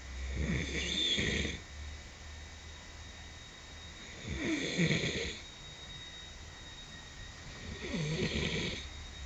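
A man snoring loudly: three rattling snores about every three and a half seconds, each lasting about a second.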